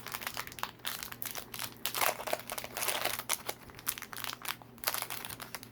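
Crinkling and rustling of a Pokémon booster pack's foil wrapper being handled and opened, in quick irregular crackles.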